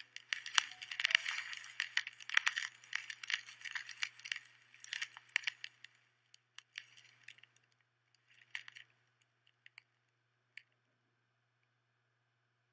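Rapid sharp clicks and crackles, like small hard pieces clinking. They are dense for about the first six seconds, then thin out to scattered single clicks.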